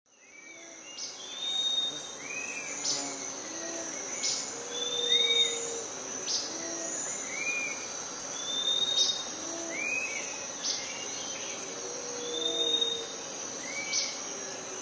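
Forest ambience that fades in: a steady, high-pitched insect trill, with short arched bird calls repeating every second or two.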